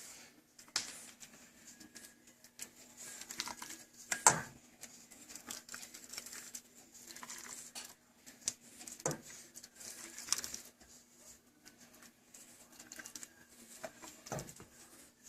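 Kitchen utensils lightly knocking and clinking against a pot and a bowl as soup is served. A few scattered knocks, the loudest about four seconds in, over a faint steady hum.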